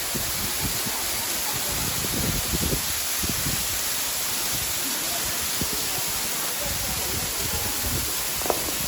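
Steady rushing hiss of a waterfall. There are irregular low knocks underneath, and one sharp click near the end.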